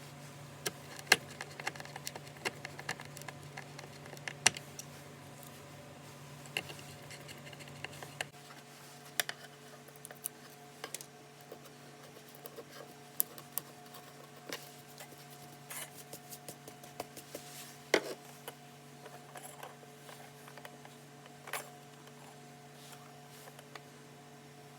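Scattered light clicks and taps of small tools and hardware being handled, a few louder knocks among them, over a faint steady hum that drops a little about eight seconds in.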